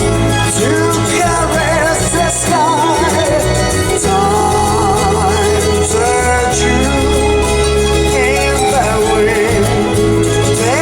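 A song playing through a Lexus CT200h's Mark Levinson car audio system: a steady bass line under a melody with vibrato.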